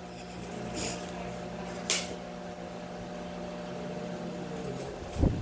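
A steady mechanical hum from a small appliance motor, with one sharp click about two seconds in; the hum stops near the end as a loud rattle of salt pouring into a stainless steel bowl begins.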